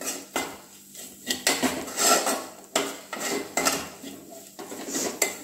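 A metal spoon scraping and clinking against a metal pan in quick, uneven strokes, stirring a thick onion masala with red chili powder.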